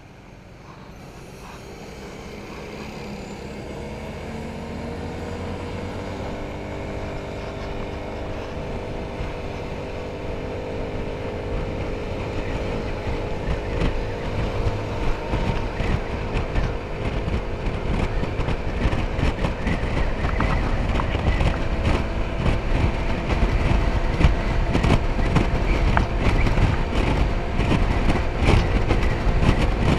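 Motor scooter engine pulling away and gathering speed, its drone rising in pitch over the first several seconds and then holding steady. Wind buffeting on the microphone grows louder as the speed builds.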